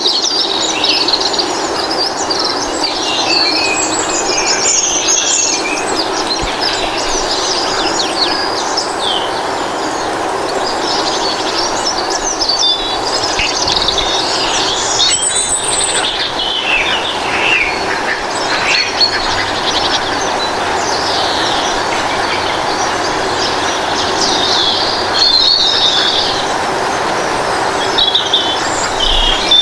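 Birdsong: many small birds chirping and twittering in quick overlapping calls, over a steady rushing background noise.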